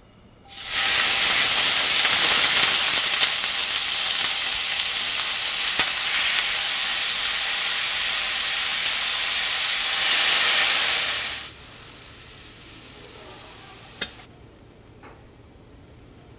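Marinated burdock root strips hitting perilla oil in a hot stainless steel frying pan and sizzling loudly at once. The sizzle holds steady for about eleven seconds, then drops abruptly to a faint hiss, with a single sharp tap near the end.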